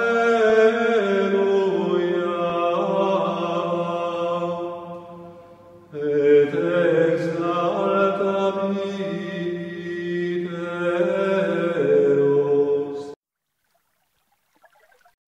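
Voices singing a slow sacred chant with several pitches at once, in two long held phrases with a short break about six seconds in. It cuts off abruptly about thirteen seconds in, leaving silence.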